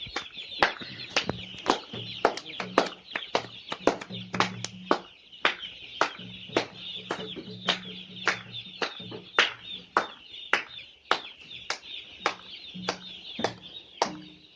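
A large brood of chicks peeping continuously in a dense, high-pitched chorus. Sharp ticks about twice a second and an on-and-off low hum run through it.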